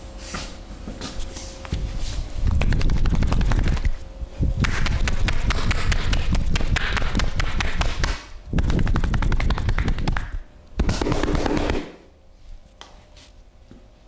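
A masseur's hands rapidly chopping and slapping on a client's body in a percussive tapotement massage. The strikes come in four fast runs of about one to four seconds each, with short pauses between, and stop about two seconds before the end.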